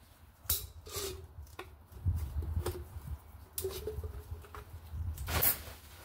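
Gloved hands handling a resin cartridge: scattered rustles and clicks with a few faint squeaks, over a low rumble. The longest rustle comes about five and a half seconds in.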